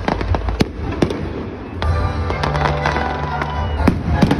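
Aerial fireworks shells bursting with sharp bangs, a cluster in the first second and more near the end, over music playing throughout.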